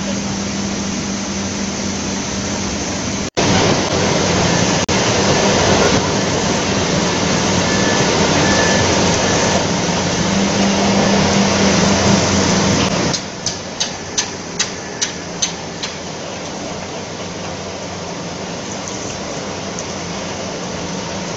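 Belt filter press and the dewatering plant machinery around it running: a steady mechanical drone with a low hum. It cuts out for an instant about three seconds in and is louder for the next ten seconds. About two-thirds of the way through comes a quick run of about seven ticks, roughly three a second, and then a quieter steady drone.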